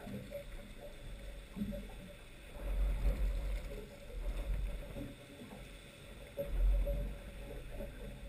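Water lapping and splashing against a small boat's hull as a hooked fish is brought alongside, with wind buffeting the microphone in three low gusts.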